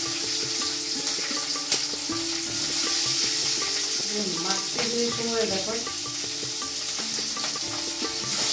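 Pieces of hilsa fish frying in hot oil in a pan, a steady sizzle.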